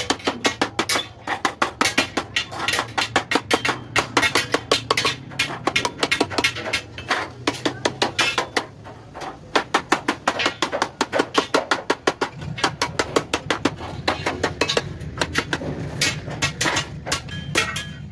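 Hammer tapping a steel punch into polished aluminium sheet to chase a dotted decorative border: rapid metallic taps at about five a second, thinning briefly around the middle.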